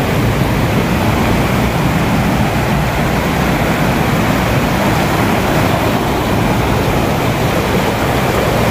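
Shallow river rushing over rocks close by, a steady loud rush of water.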